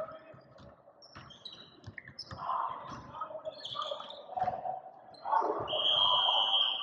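Basketball in play on a gym floor: sneakers squeak in short high chirps and the ball bounces in scattered knocks. Near the end comes a longer, louder, steady high squeal.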